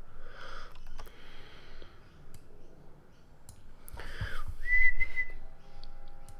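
A short, steady high whistle about three-quarters of the way through, with a few faint clicks around it.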